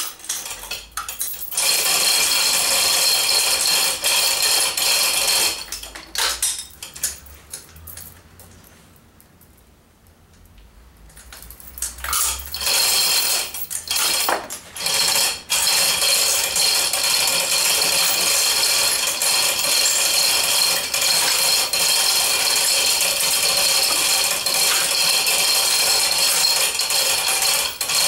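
Chain hoist's hand chain rattling and clinking as it is pulled hand over hand to lower a hanging engine, stopping for a few seconds about six seconds in, then running on steadily.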